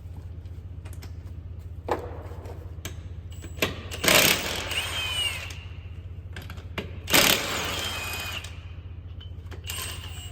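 An impact wrench running lug nuts while wheels are mounted: two bursts of about a second and a half, around four and seven seconds in, with a whine that bends in pitch. Sharp clicks of tools and nuts come between the bursts, over a steady low hum.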